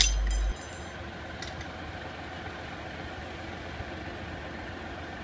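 The front brake caliper's metal spring clip on an Opel/Vauxhall Meriva is pried off with a screwdriver. It snaps free with a sharp metallic click and a short ringing jangle, and there is a smaller click about a second and a half in. After that only a steady low background hum remains.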